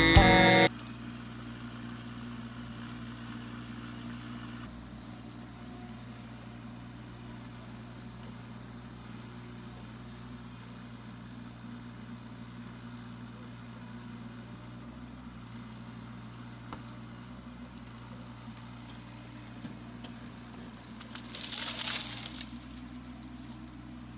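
Mini excavator engine running steadily at an even pitch, with a short noisy crackle about 21 seconds in. A country song cuts off in the first second.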